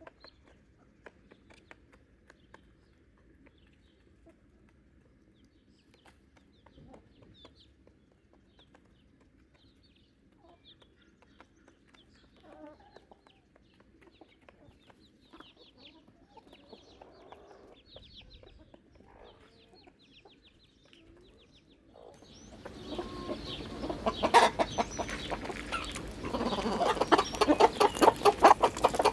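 Chickens clucking softly. About three-quarters of the way through, a much louder run of rapid rustling and clattering sets in.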